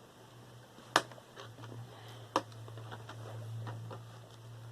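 Two sharp clicks about a second and a half apart and several fainter ticks from hard parts or tools being handled, over a low steady hum.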